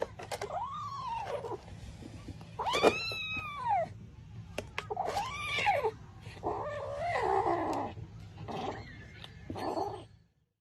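A domestic cat meowing repeatedly: about six drawn-out meows, each rising and then falling in pitch, over a low steady hum, stopping abruptly near the end.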